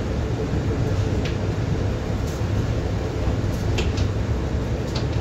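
Steady low rumble of a moving passenger train heard inside the carriage, the wheels running on the track, with a few short high clicks or rattles now and then.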